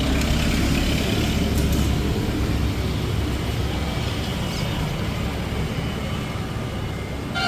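Road traffic: a motor vehicle's engine rumble swelling and slowly fading as it passes.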